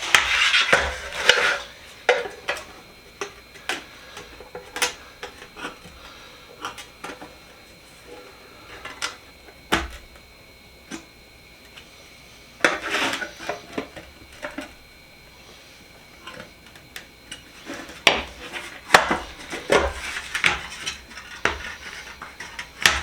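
Steel socket-set box being worked apart to free its tray insert: metal clanks, scrapes and clicks in short clusters, with single taps in between.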